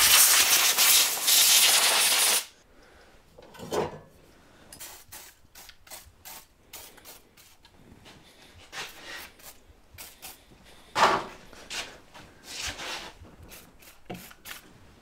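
Pressurised spray hissing over a stripped-down superbike: one long blast of about two and a half seconds, then a run of short spurts from an aerosol spray can.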